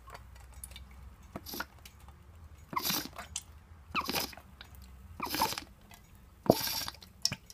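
Vegetable oil being poured from a bottle into a hot pot, in five short noisy bursts about a second apart, with faint clicks between.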